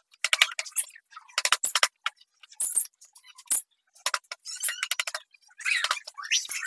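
Hand carving blade scraping and cutting in short, rapid strokes over carved wood and thin sheet-metal trim, coming in several bursts with short pauses between them.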